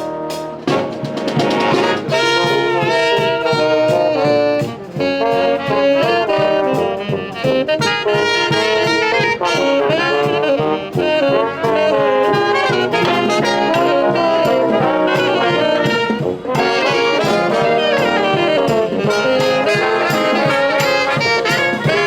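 Upbeat brass music playing a busy melody over steady accompaniment, with no break.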